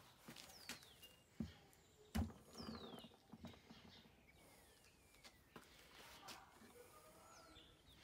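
Quiet outdoor scene: a dull thump about two seconds in, followed by brief scraping and a few knocks, as a large rock is set down on the bricks that hold up the scooter. A bird gives several thin falling whistles throughout.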